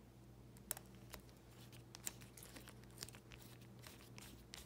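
Faint scattered clicks and taps of a screwdriver and a small countersunk screw being handled and fitted into a flyer spacer, over a low steady hum.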